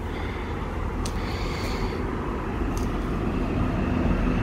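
Road traffic rushing past, with a low rumble, growing steadily louder as vehicles approach.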